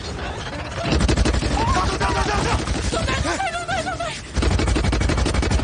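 Rapid sci-fi blaster fire from movie sound effects: a dense stream of shots starting about a second in, with a wavering high cry over it in the middle. After a brief dip near the four-second mark, the firing comes back heavy and booming.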